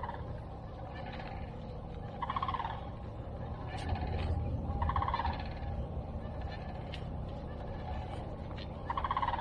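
A bird calling several times, each call a short, rapid rattling burst, over a steady low background hum.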